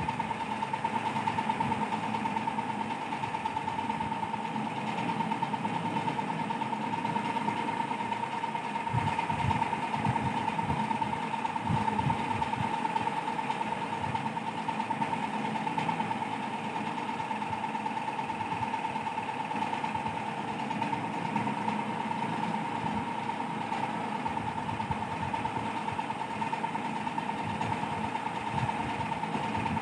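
A steady motor-like hum with a constant high whine, unchanging throughout, with a few low bumps in the middle.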